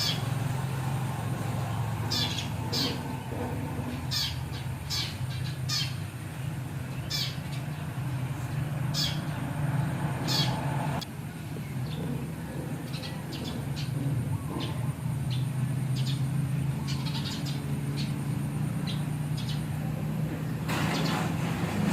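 A pet monkey making short, high-pitched squeaks, repeated irregularly every second or two, over a steady low hum.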